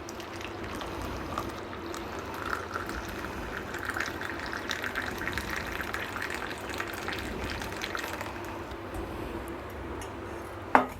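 Hot herbal kadha being poured from the pan through a strainer into a cup: a steady trickle of liquid, with a short knock near the end.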